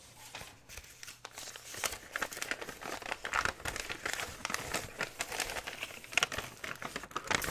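Brown kraft packing paper crinkling and rustling as it is unfolded by hand, in a run of irregular crackles.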